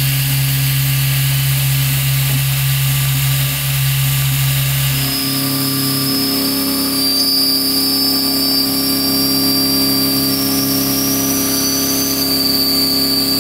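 Doosan horizontal machining center full-slotting steel with an end mill: a loud, steady drone of spindle and cut. About five seconds in the tone changes to a higher hum with a thin high whine, as another slotting cut takes over.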